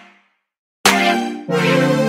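Background music with a short break: it dies away, drops to silence for about half a second, then comes back in strongly.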